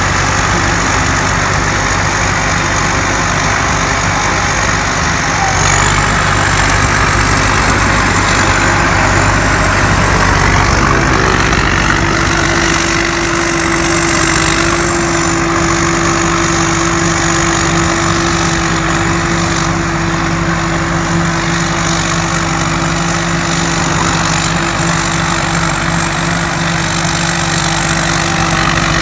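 Combine harvester running steadily, its engine drone topped by a high, loud blower whine that wavers in pitch. About a third of the way through, the pitch shifts and a new steady hum joins and holds.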